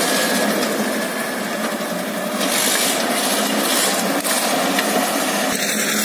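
Diesel engine of a TDT-55 tracked logging skidder running steadily close by.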